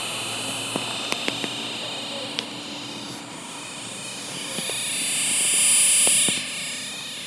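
Very high-pitched whine and hiss from a small circuit-kit speaker playing the phototransistor signal of a homemade mechanical TV camera as its disc spins in sunlight. Several sharp clicks come in the first two and a half seconds. The high hiss swells to its loudest for about two seconds near the end.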